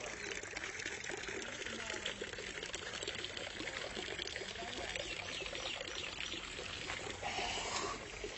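Water pouring and splashing steadily.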